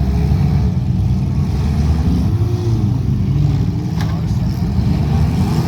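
Demolition derby car engines running and revving, their pitch rising and falling, with a sharp knock about four seconds in.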